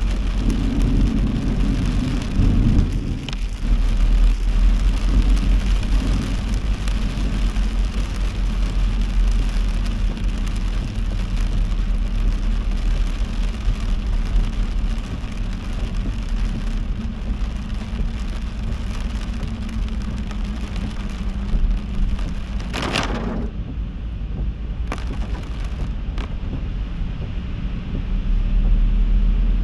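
Heavy rain hissing over the low rumble of a car driving on a wet road. About 23 seconds in comes a brief loud swish, after which the rain hiss thins.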